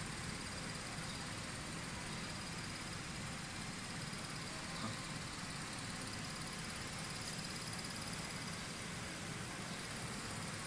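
Steady hum with a faint, high, constant whine from a powered-up multi-head embroidery machine standing idle, its needles not stitching.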